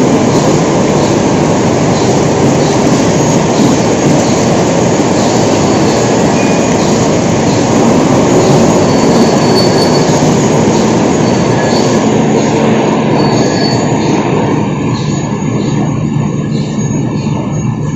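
Loud, steady heavy machine-shop noise, a dense mechanical rumble from the workshop machinery, easing a little near the end.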